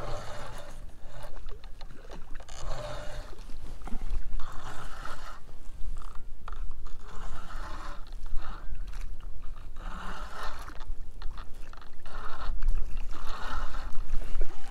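Spinning reel being cranked in repeated spells while a hooked channel catfish pulls against a bent rod, with a steady low wind rumble on the microphone.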